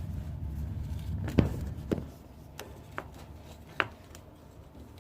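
Plastic condensate drain fittings and hose being handled and pushed together, giving about five sharp clicks and knocks spread over a few seconds, over a low hum that drops away about two seconds in.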